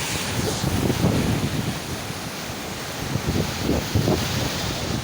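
Ocean waves surging, with wind buffeting the microphone in uneven gusts.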